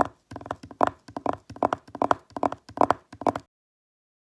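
A foley sound of about eight knocks or taps at roughly two a second, which stop abruptly.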